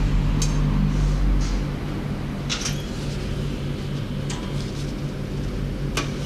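A steady low machine hum, louder for the first second and a half, with a few sharp clicks scattered through.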